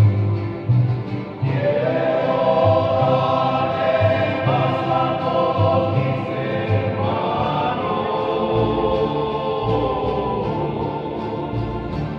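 Choir singing slow, long-held chords that slide to new notes a couple of times, over a repeated low bass pulse.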